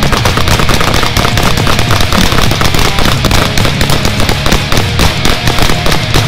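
Several shooters firing handguns, an AR-type rifle and a DP-12 shotgun at the same time: a dense, unbroken run of overlapping shots. Loud rock music plays under the gunfire.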